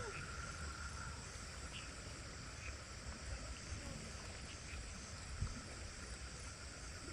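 Steady chorus of insects, crickets or cicadas, over a low background rumble.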